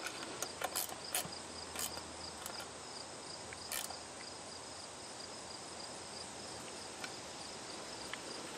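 Crickets chirping steadily in the background, with a scattering of light metallic clicks, mostly in the first half, from a small wrench working a brass plug onto a fuel fitting.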